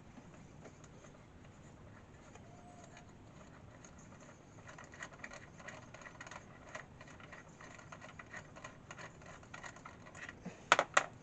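Light handling noise: faint scratching and small taps that grow busier about halfway through, then two sharp clicks in quick succession near the end.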